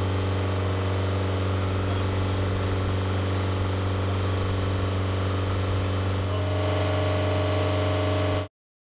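Horizontal directional drilling rig's engine running steadily with a deep hum, as the rotary head is pulled back to line up the rod joint in the wrenches; a higher steady tone joins about six and a half seconds in, and the sound cuts off suddenly near the end.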